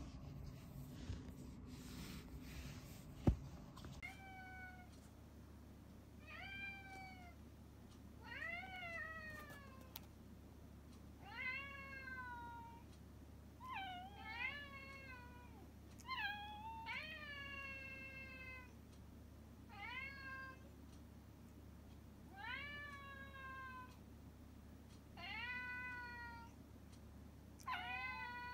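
Brown tabby domestic cat meowing repeatedly, a dozen or so meows every couple of seconds, each rising then falling in pitch; the meowing starts about four seconds in.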